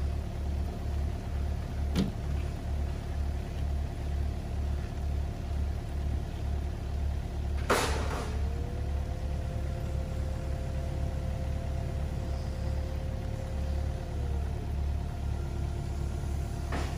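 Mini excavator's diesel engine idling with a steady low chugging. A sharp click comes about two seconds in and a louder one about eight seconds in; after the second, a steady whine rises in, holds for about six seconds, and falls away.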